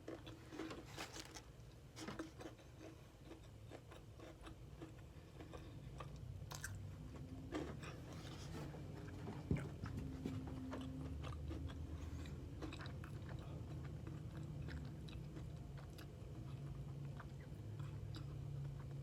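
A person biting into and chewing a fried chicken sandwich close to the microphone, with soft crunches and wet mouth clicks.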